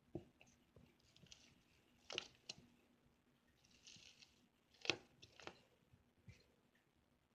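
Slime being handled: faint scattered clicks and crackles, a few sharper ones about two and five seconds in, with a short soft squishy hiss around the middle.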